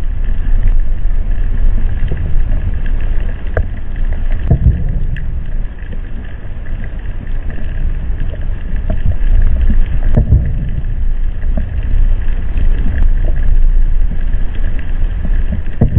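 Seismic airgun blasts recorded underwater from a long way off: three dull low thuds, roughly every five and a half seconds, over a steady low rumble of water noise.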